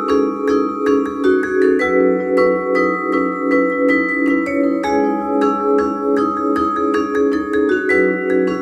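Solo four-mallet vibraphone (Musser) playing a fast, even stream of notes that ring into one another, the chord shifting every few seconds.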